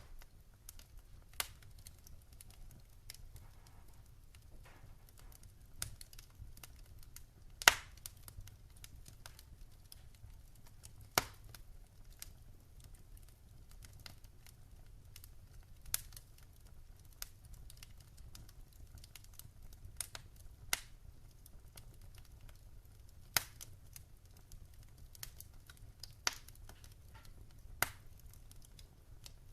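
Wood fire in a fire pit crackling, with sharp pops at irregular intervals of a few seconds, the loudest about eight seconds in, over a faint continuous crackle and a low steady rumble.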